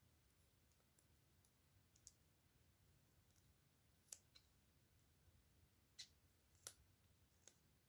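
Near silence with a few faint, scattered small clicks and taps, the loudest about four and six seconds in, from hands handling a small toy.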